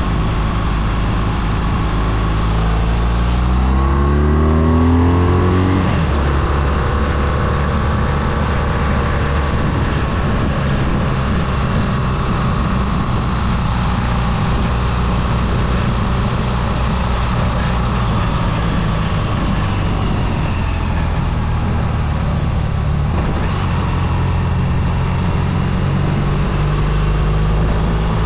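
Motor vehicle engine under way on a climbing mountain road: it rises in pitch as it accelerates, drops abruptly about six seconds in, then runs at a fairly steady pitch over a constant rush of road and wind noise.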